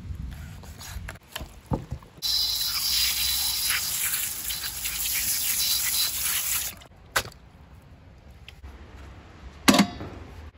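Running water pouring over chunks of raw beef into a metal bowl as they are rinsed, a steady rush for about four and a half seconds that stops abruptly. A few short knocks come before and after it, the loudest near the end.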